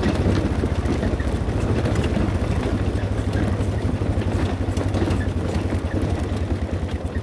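ATV engine running steadily while riding along a rocky dirt trail, a low even drone with fast firing pulses.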